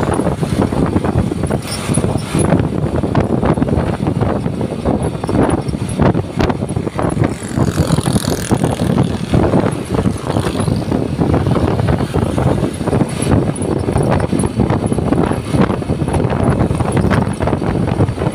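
Steady low rumble of a bus's engine and road noise, with constant irregular rattling and buffeting.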